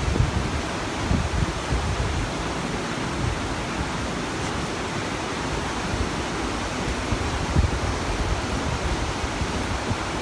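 Steady rush of water from a nearby waterfall, with an uneven low rumble underneath.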